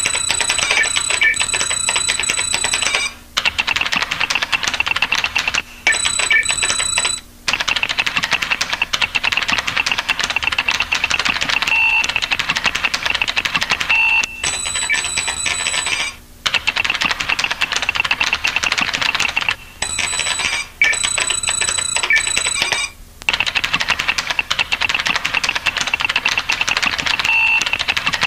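Rapid, continuous keyboard-typing clicks, a typing sound effect, with a high ringing tone in some stretches and several short pauses.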